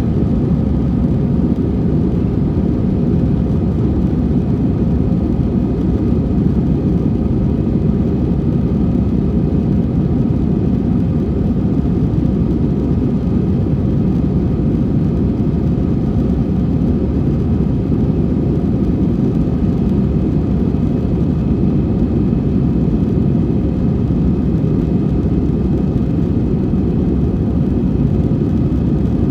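Steady jet-engine and airflow noise inside an airliner cabin with the engines at high power: a low rumble with faint steady engine tones above it.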